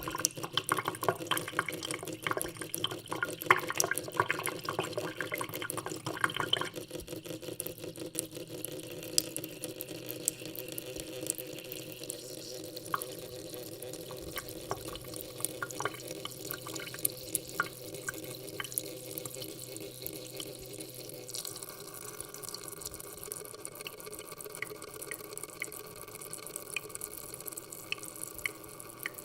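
Water from a tap running into a sink, splashing densely for about the first seven seconds, then running more gently. Near the end, drops fall at an even pace.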